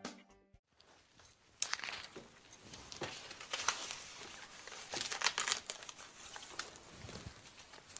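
Books being handled and pulled from a bookshelf: scattered light knocks, slides and papery rustles.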